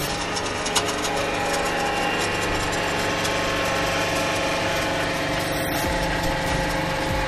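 Hydraulic press running steadily under load with its steel ram pressed down on a crushed ball, with fine ticking throughout and one sharp crack about a second in.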